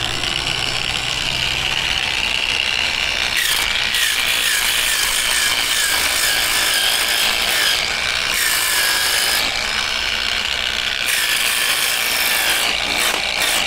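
Electric angle grinder with a 60-grit sanding disc running steadily while sanding down the edge of a sailboat's rudder blade. Its high whine sags slightly in pitch several times in the middle as the disc bears down on the work.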